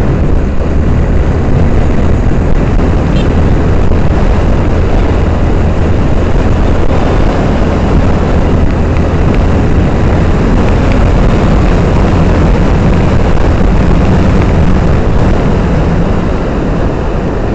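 Honda Verza motorcycle riding along a street: a steady, loud rush of wind and engine noise heard from the moving bike, easing slightly near the end.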